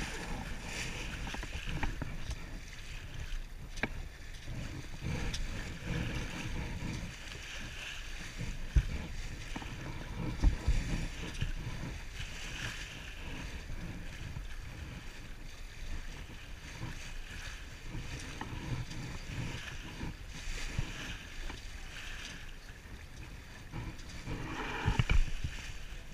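Water rushing and splashing along the hull of a sailboat under way, with wind buffeting the camera microphone as a steady rumble. A few sharp knocks stand out over it.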